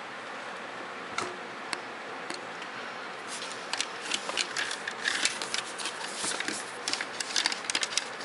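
Hard plastic parts of a Robots in Disguise Optimus Prime toy's ladder trailer clicking and rattling as they are handled. There are a couple of single clicks in the first two seconds, then a dense run of clicks and clatter from about three seconds in.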